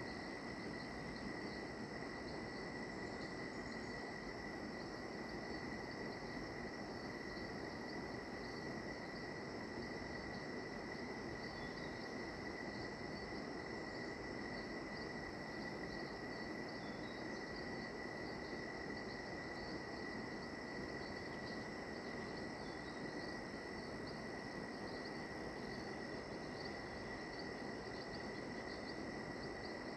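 Rainforest insect chorus at dusk: a steady, unbroken high-pitched drone with fast pulsing trills layered above it over a soft background hiss.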